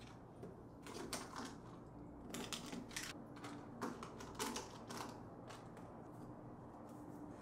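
Faint, irregular clicks, taps and crinkles of small packaged items being handled and set down: plastic single-use alcohol swab sachets and lipsticks moved between a woven seagrass basket and a plastic organizer tray.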